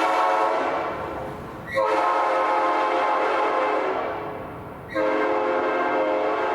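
3D-printed replica of a Nathan Airchime P5 five-chime train horn, fitted with a custom 370 Hz #3 bell that makes an A major 6th chord, sounding in loud blasts. A held blast tails off, then two more blasts of about three seconds each start sharply, a little under two and about five seconds in, each fading as it goes. The chord is slightly out of tune, with the #4 bell sharp and the #5 bell considerably flat.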